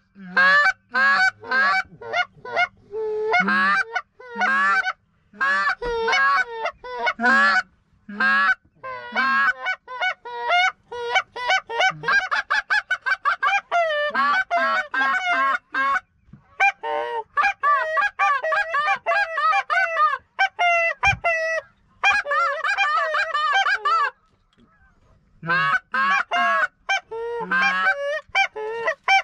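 Canada geese honking as a flock flies in toward the decoys, mixed with hunters' goose calls blown in answer: quick runs of honks and clucks, many overlapping in the middle, with a brief pause near the end.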